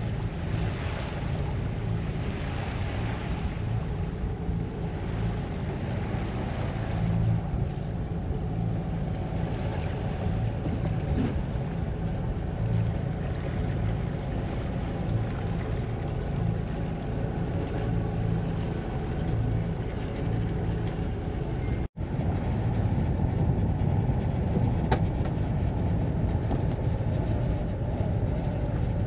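Boat under way at sea: a steady low drone with rushing water that swells and fades several times early on. The sound breaks off for a split second about three-quarters of the way through.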